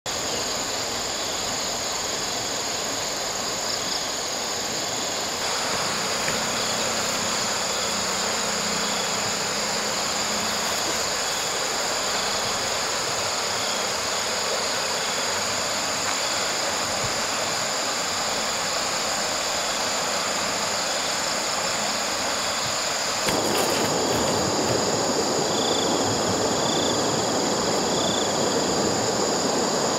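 Outdoor ambience of steady high insect trilling, with a faint chirp repeating at an even pace, over a continuous rushing noise that grows louder near the end.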